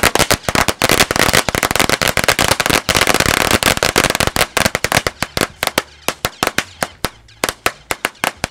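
A large string of Black Cat firecrackers going off in a rapid, dense barrage of bangs for the first five seconds or so, then thinning to scattered single pops.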